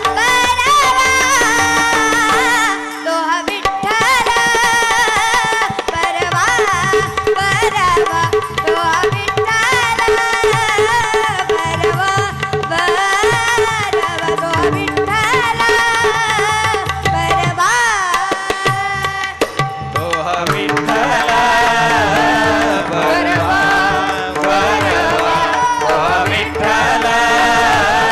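Bhajan music: tabla playing a steady rhythm under a wavering melody with a held low note. There are brief lulls about three seconds in and again about two-thirds of the way through.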